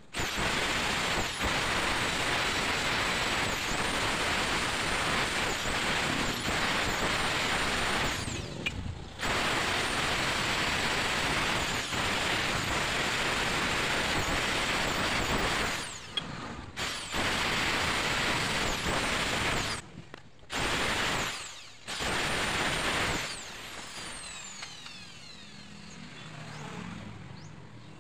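Handheld electric drill running against a motorcycle's worn splined shaft, re-cutting the splines, with a harsh, even grinding hiss. It runs in long bursts with short stops about 8, 16, 20 and 22 seconds in, and stops a little after 23 seconds.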